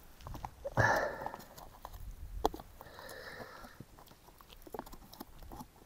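A spoon stirring and scraping inside a plastic dehydrated-meal pouch, with crinkling of the packaging and many small scattered clicks; a louder rustle comes about a second in. The meal is being mixed with boiling water to rehydrate.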